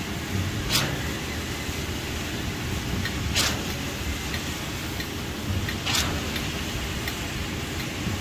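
Concrete pump on a foundation pour: its diesel engine runs steadily, and a short sharp hiss comes three times, about every two and a half seconds, as the pump cycles its strokes.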